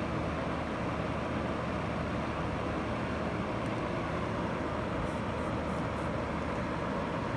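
Steady background noise with a low hum, unchanging throughout, with four faint, short high ticks about five to six seconds in.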